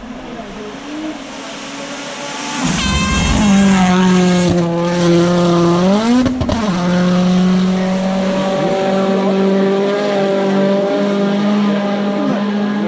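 A World Rally Championship car passing at speed on the shakedown stage. Its engine grows louder over the first few seconds and its pitch drops sharply about three seconds in as it goes by. Around six seconds in the note rises quickly and falls back at a gear change, then holds a steady, loud engine note.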